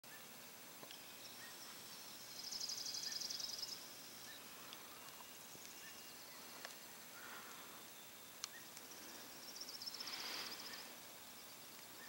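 Quiet outdoor ambience with a small songbird singing a high, rapid trill twice, each about a second long, the first a couple of seconds in and the second near the end, with faint short chirps between.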